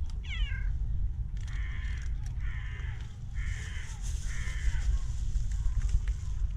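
Animal calls: a falling cry just after the start, then four short calls in a row, evenly spaced, from about a second and a half in.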